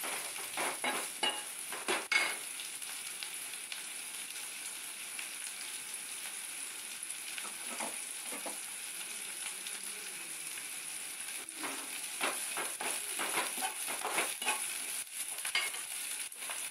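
Field snails, onions and green chillies sizzling steadily in an aluminium kadai on a gas burner. A steel spoon scrapes and knocks against the pan while stirring, in the first couple of seconds and again about twelve to fifteen seconds in.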